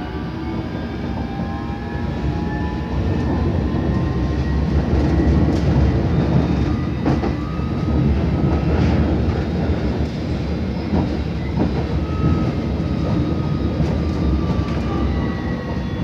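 London Underground S7 Stock train running at speed, heard from inside the carriage. The wheels on the track make a steady rumble that grows louder about three seconds in, broken by irregular clicks and knocks, while the electric traction motors give a faint whine that shifts in pitch.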